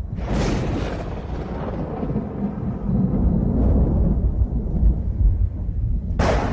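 Thunder: a sharp crack of a close lightning strike just after the start, fading into a long low rolling rumble, then a second sharp crack near the end.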